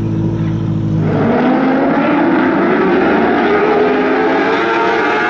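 Lightning sprint car engines: a steady low engine drone, then about a second in several engines rev up together, their pitch rising.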